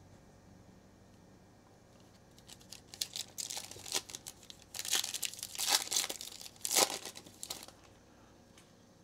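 A foil trading-card pack being torn open and crinkled by hand: crackling, tearing noise in bursts over about five seconds, starting a couple of seconds in and loudest near the end before stopping.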